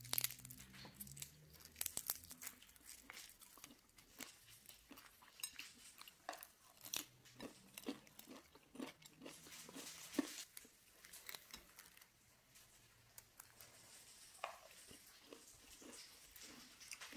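Faint, irregular crisp crunches and crackles of fried, caramelised spring-roll wrappers on apple rolls as they are broken and handled.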